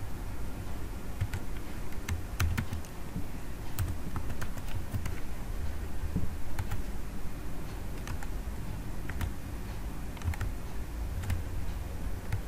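Computer keyboard keys clicking in short, irregular strokes as text is typed.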